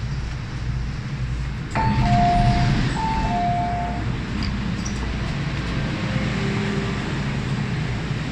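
Two-note chime on an MTR M-Train, a higher note then a lower one, sounded twice about two seconds in, over the steady low rumble of the train running.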